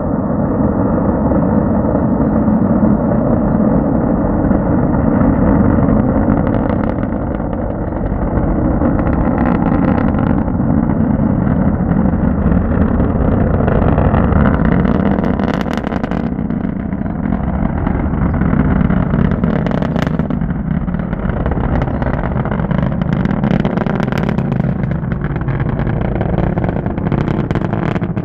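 Falcon 9 rocket's first-stage engines during ascent: a steady low rumble with scattered sharp crackles, which grow stronger from about halfway in.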